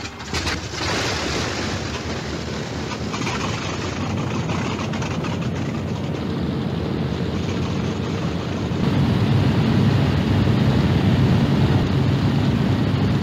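B-17 Flying Fortress's four radial piston engines running with a steady propeller drone, growing louder about nine seconds in as the bomber takes off.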